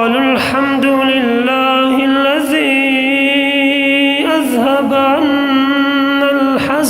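A male Quran reciter chanting in melodic tajweed style, holding a long, ornamented vocal line on a mostly steady pitch, with a short break a little after four seconds in.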